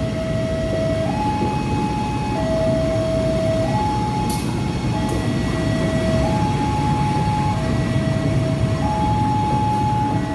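A two-tone electronic warning alarm alternating steadily between a lower and a higher note, each held about a second and a quarter, over the steady rumble of a train. Two brief sharp clicks about four and five seconds in.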